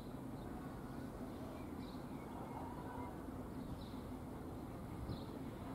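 Faint outdoor ambience: a steady low rumble, with a small bird giving a short high chirp every second or two.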